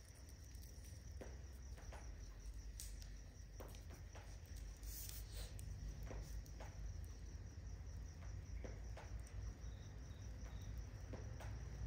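Crickets chirping steadily and faintly over a low rumble, with scattered faint clicks and crackles.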